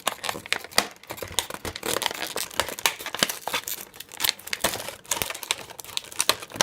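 Packaging of a toy set being handled as the toy food is pulled out: dense, irregular crinkling and rustling with many sharp crackles.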